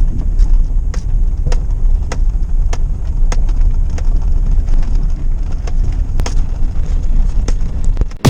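Chevrolet S10 ZR2 pickup running, a steady low rumble with a faint tick about twice a second.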